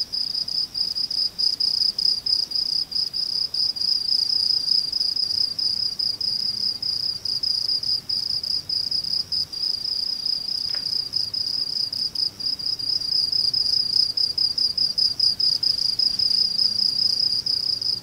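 Crickets chirping in a steady, rapid pulsing trill, used as a dubbed sound effect for an awkward silence.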